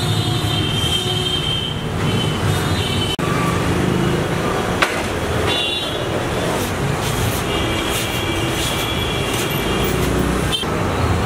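Steady road traffic noise with passing vehicle engines, and a few held horn toots on and off.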